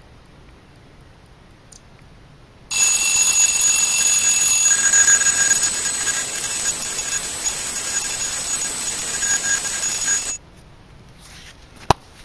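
An alarm rings for about eight seconds, starting and stopping abruptly, signalling that the two-hour percolation-test timer is up. A single sharp click follows near the end.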